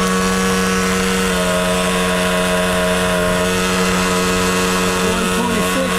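Traxxas Rustler's TRX 2.5 nitro two-stroke glow engine running at high revs, holding a steady high-pitched note. The engine is still being broken in.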